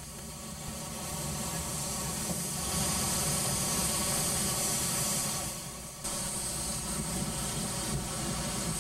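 Fire hose spraying water onto a car: a steady hiss of water that swells and is loudest in the middle, dips and comes back abruptly about six seconds in, with a low engine hum underneath.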